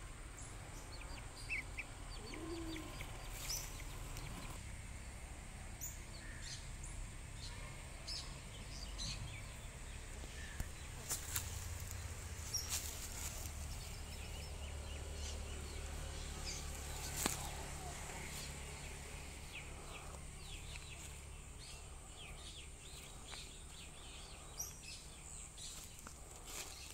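Field Marshal 6 hp single-cylinder water-cooled diesel engine, a slow-speed Lister CS type, running steadily at low speed of about 650 rpm with a low, even thudding. Birds chirp briefly over it.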